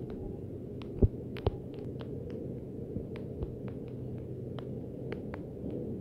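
Steady low hum, with faint scattered clicks and two sharper knocks about a second in.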